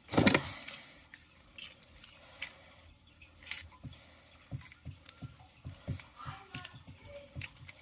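Rubik's Edge, a flat 3x3x1 plastic puzzle, being turned quickly by hand during a timed solve: a loud clatter just after the start as it is grabbed, then a run of short plastic clicks and clacks from the turns.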